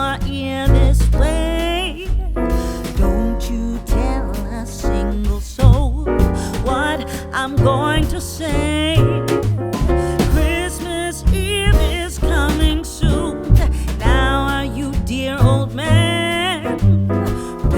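Background music: a song with a sung vocal over piano or keyboard and a steady bass, in a soul or R&B style.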